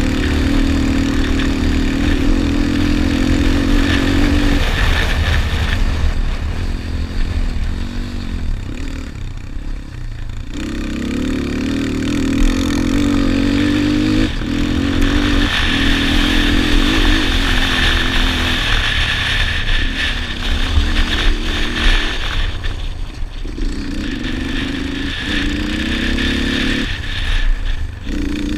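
Yamaha Raptor 250 quad's single-cylinder four-stroke engine under race load, revving up and easing off again and again, with a longer lull off the throttle about six to ten seconds in. Heavy wind rumble on the microphone underneath.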